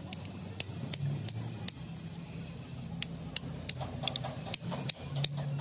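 Hand hammer striking a steel pin held against the steel body of a hydraulic breaker hammer: about a dozen sharp metallic taps at uneven spacing, coming quicker in the second half. A steady low engine hum runs underneath.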